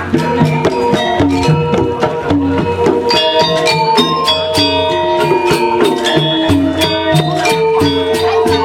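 Balinese gamelan music accompanying the dance: fast, dense strikes on tuned metal percussion over repeating low notes, in an even rhythm.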